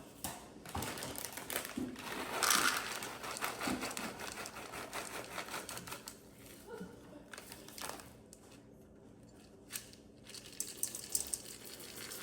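Rustling and crinkling with quick small clicks and taps from ingredients and kitchen utensils being handled, loudest a couple of seconds in.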